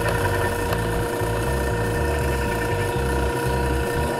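A drill press motor running with a steady whine and low rumble while its bit bores into a pine board.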